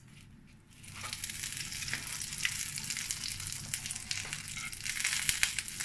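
A lump of unsalted butter melting and sizzling in a hot frying pan, starting about a second in as a hiss with small crackling pops, getting a little louder toward the end.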